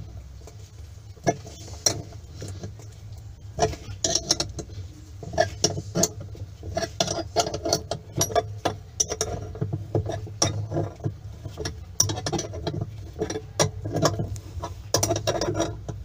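Irregular metallic clicks and clinks of the centre bolt of a homemade bushing puller being turned down with a wrench and by hand, over a steady low hum. The bolt presses on the washing machine's transmission shaft to draw out a stuck agitator bushing.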